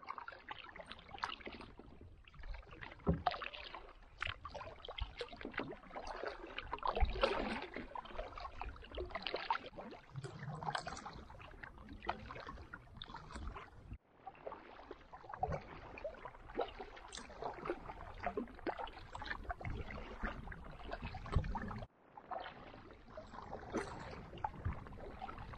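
Canoe being paddled: irregular strokes and splashes of the paddle in the water, with drips between strokes. The sound cuts off abruptly twice and resumes each time.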